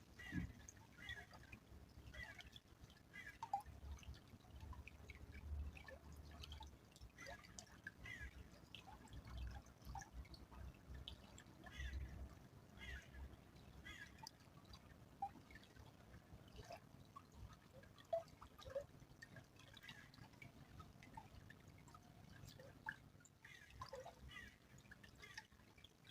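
Faint small stream trickling, with irregular little drips and plops from the running water.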